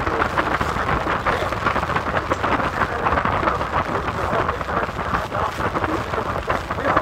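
Wind buffeting the microphone aboard a moving tour boat: a steady, crackling rush of noise over the boat's engine and water sounds.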